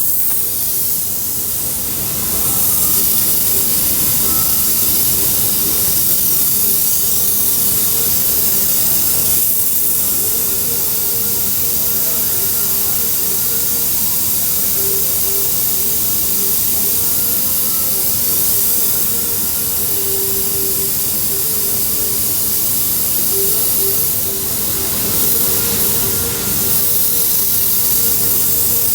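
Steady rushing hiss of hot air, as from a hot-air plastic welding gun blowing on the work. It comes up about two seconds in and dips briefly twice near the end.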